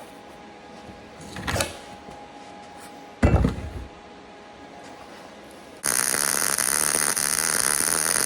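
A heavy thump about three seconds in, then the steady crackle of a MIG arc from about six seconds in: an ESAB Fabricator 141 running wire-feed, laying a weld bead on scrap steel.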